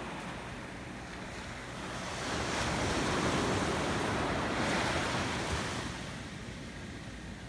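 Sea waves washing onto the shore. One surge swells up about two seconds in, peaks, and draws back by about six seconds.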